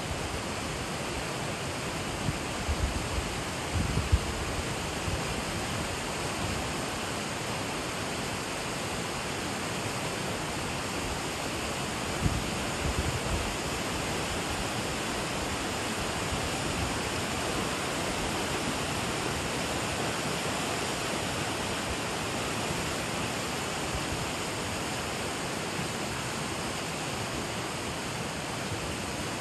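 Steady rushing of a shallow river running fast over rocks and riffles. A few brief low bumps come about two to four seconds in and again about twelve seconds in.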